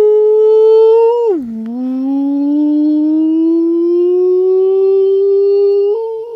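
A man's voice holding one long wordless tone. It slides down in pitch about a second in, then climbs slowly back up over several seconds, with a small step up near the end.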